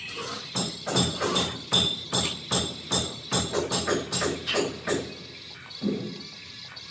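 Background music with a percussive beat: a run of sharp, evenly spaced hits, about two or three a second, that stops about five seconds in, with one more hit near the end.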